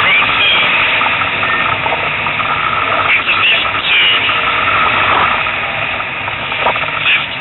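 Rally car's engine and road noise heard from inside the cabin: a loud, steady rush.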